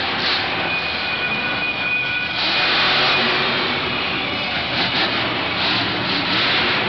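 Monster truck's supercharged engine running hard and revving during a freestyle run, swelling louder about two and a half seconds in, echoing through a large enclosed stadium.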